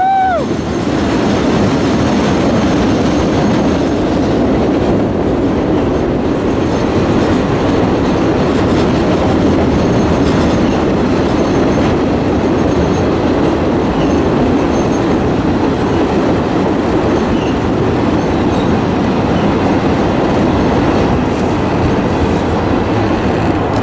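Diesel-hauled train of passenger cars rolling across a steel truss bridge: a loud, steady noise of wheels and cars on the bridge, with a brief pitched tone that bends up and down right at the start.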